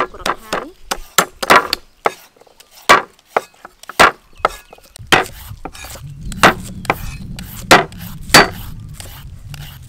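Cleaver and kitchen knife chopping garlic and green onions on round wooden chopping blocks: irregular, sharp knocks of blade on wood.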